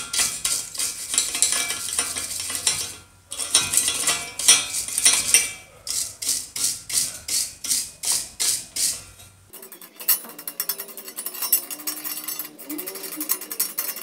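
Hand wire brush scrubbing rust off the gear of a vintage Miller Falls hand drill, a hissy metal scrape with each stroke, about two strokes a second. About nine seconds in, the scrubbing turns quicker and lighter, a rapid fine scratching.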